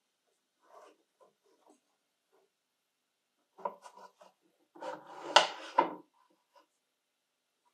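A 1960s Festo circular saw being handled: a few light clicks as its blade-guard lever is worked, then its metal base scraping on a wooden bench, with two sharp knocks near the end.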